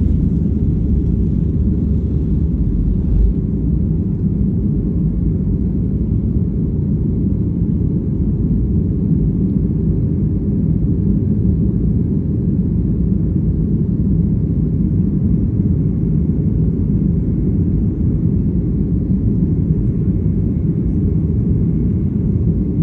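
Boeing 737 jetliner's engines at takeoff power, heard from inside the cabin as a steady low rumble while the plane leaves the runway and climbs out.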